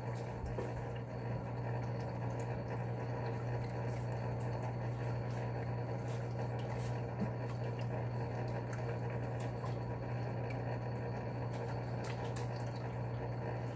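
Steady bubbling and trickling of running aquarium water over a constant low hum of its pump, with a few faint crinkles and taps as packing material and fish bags are handled.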